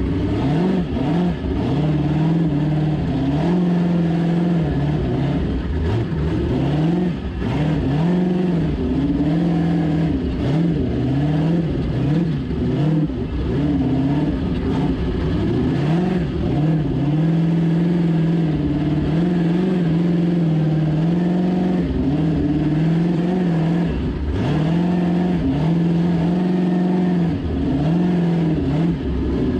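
Ultra4 off-road race car's engine heard from inside the cockpit, revving up and down again and again as the car works slowly along a rough trail.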